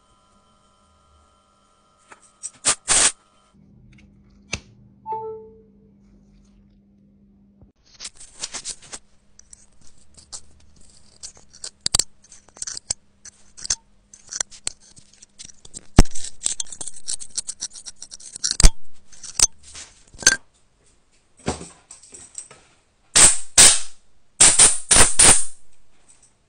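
A bent metal pick scratching and scraping lint out of a phone's USB-C charging port, close-miked, with many sharp ticks as it knocks the metal. The scraping comes in short bursts, louder and denser near the end.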